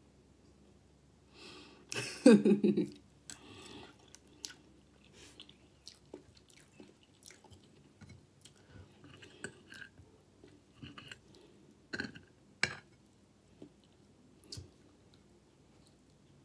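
Close-miked eating sounds: chewing of scrambled eggs and pancake with scattered small mouth clicks, and two sharper clinks of a metal fork against the plate about twelve seconds in. A short hummed vocal sound from the eater is the loudest sound, about two seconds in.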